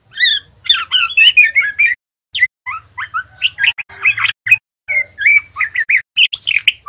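Young male white-rumped shama singing its rambling learning song: quick twittering chirps that jump up and down in pitch. It sings in three runs, with short breaks about two seconds and about five seconds in.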